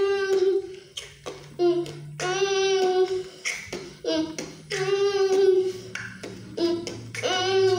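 A child's voice singing a repeated wordless phrase: a short note, then a long note held for about a second on the same steady pitch, three times over and starting a fourth near the end.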